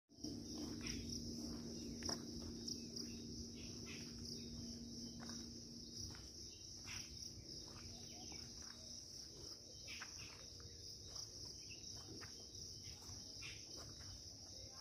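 Insects droning steadily in woodland, one unbroken high-pitched chorus, with scattered faint clicks and a low steady hum underneath.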